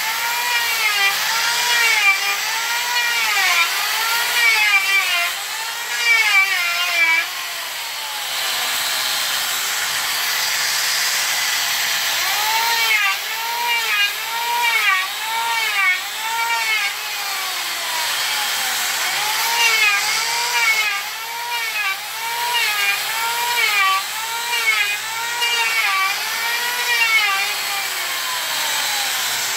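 Handheld orbital sander running on a solid jackfruit-wood door. Its motor whine rises and falls in pitch about once a second, holding steadier for a few seconds now and then.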